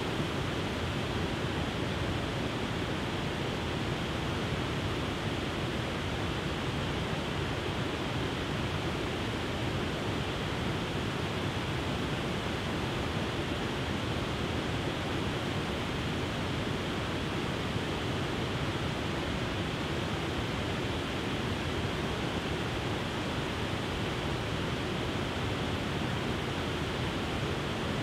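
Wide, tiered waterfall spilling over rock ledges into a shallow river: a steady, unbroken rush of water.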